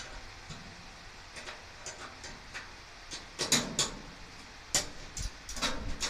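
Metal clicks and clinks of a wrench working on garage door spring and hanger hardware: scattered light clicks, then a quick run of louder ones about halfway through and a few more near the end.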